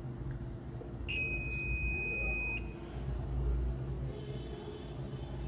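A digital multimeter's continuity beeper sounds once, a steady high-pitched beep lasting about a second and a half, as the test probes touch a low-resistance path on a circuit board. A faint low hum runs underneath.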